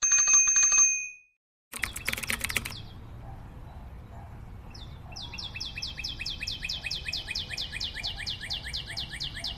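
A bird sings a long run of quick descending chirps, about five a second, from about five seconds in, over a low rumble of wind and tyres on a concrete lane. It is preceded by a loud opening second holding two steady high tones, a moment of silence, and a short burst of clicks about two seconds in.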